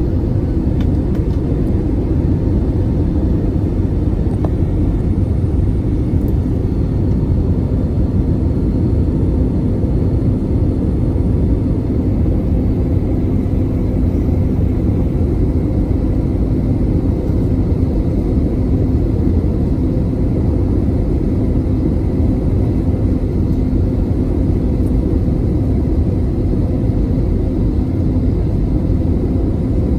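Airbus A320 cabin noise on final approach: a steady low rumble of the jet engines and airflow, with a steady hum underneath.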